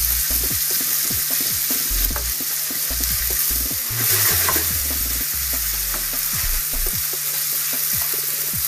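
Chopped meat sizzling as it browns in a frying pan with bacon and onions, stirred with a utensil that clicks and scrapes against the pan; the sizzle swells briefly about four seconds in.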